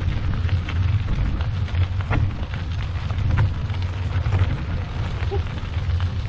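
Trike tyres rolling over a gravel path: a steady low rumble with many small crackles and pops of loose stones.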